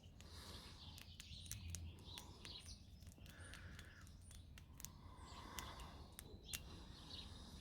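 Faint chirps of small birds, with a scattering of sharp, faint clicks and ticks.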